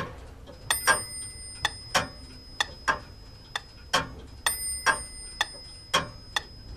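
A clock ticking steadily, about two ticks a second, with alternating stronger and weaker ticks.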